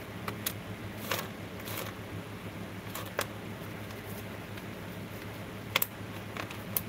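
Scattered light clicks and clinks of small copper-foiled sea glass pieces being picked up from and set down on a metal tray, about nine in all and loudest a little before the end, over a steady low hum.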